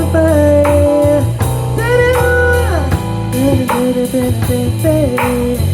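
Instrumental music: an electric guitar plays a melody with sliding, bending notes over sustained bass notes and sparse drum hits.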